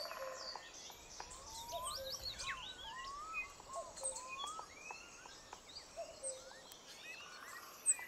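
Northern mockingbird singing: a quiet, varied string of short whistled chirps and rising-and-falling notes, some overlapping.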